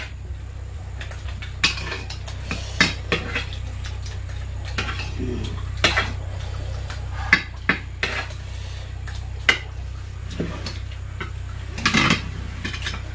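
Metal eating utensil clinking and scraping against a bowl or plate while eating, in scattered sharp clinks a second or several apart, over a steady low hum.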